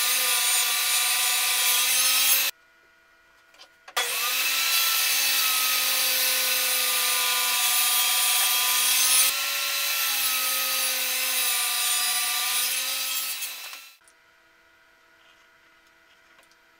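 Table saw running and ripping a stack of plywood, a loud whine of blade and motor with cutting noise, its pitch dipping and recovering as the blade works through the wood. It breaks off about two and a half seconds in, comes back a second and a half later, and dies away about two-thirds of the way through.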